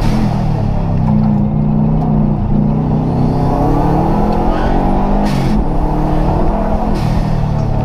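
Rally car engine heard from inside the stripped, caged cabin, pulling hard. The revs sag and then climb, dropping suddenly about five and seven seconds in, each drop with a short sharp crack.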